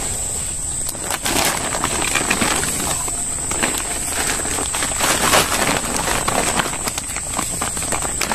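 Irregular rustling and crackling of a woven plastic sack and scuffing hands as a large fish is handled out of a hoop net, over a steady high-pitched chirring of night insects.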